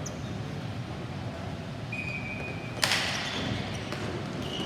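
Ball hockey sticks and ball at a faceoff: one sharp smack about three seconds in, with a rattling tail of about a second, in a reverberant hall. A short high squeak comes just before it.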